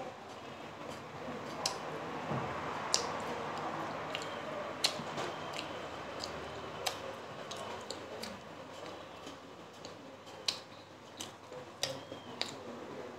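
Someone eating steamed momos: chewing and wet mouth sounds with a dozen or so sharp clicks and smacks scattered through.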